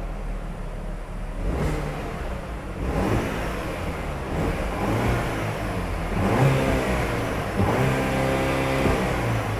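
Opel Insignia GSI engine revving up several times, its pitch rising and falling, with the loudest rev a little past the middle.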